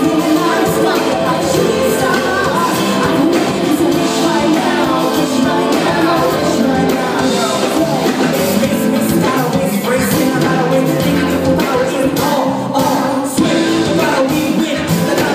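Live band with bass guitar and drum kit playing a pop-rap song through stage PA speakers, with a woman and a man singing and rapping into microphones over it.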